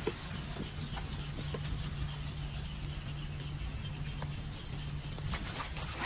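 Rain falling on a flooded street, with scattered drops clicking into the standing water over a steady low hum; the drop sounds grow busier near the end.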